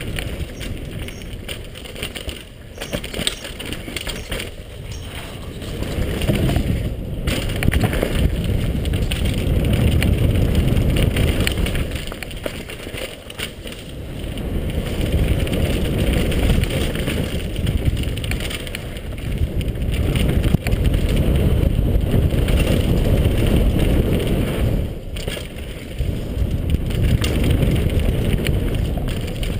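Mountain bike ridden fast downhill on a dirt and rock trail, heard from a helmet-mounted camera: a low rush of wind on the microphone with tyres crunching over dirt and stones and the bike rattling and knocking over bumps. The rush swells and eases with speed, dipping about twelve seconds in.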